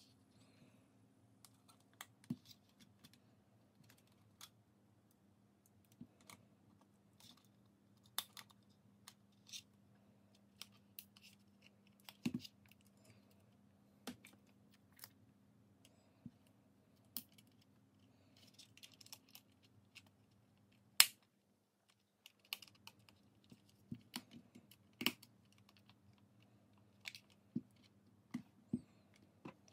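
Irregular light clicks and taps of small tools and plastic parts being handled at a workbench, over a steady low hum. The loudest, sharpest click comes about two-thirds through, and the hum drops out for about a second right after it.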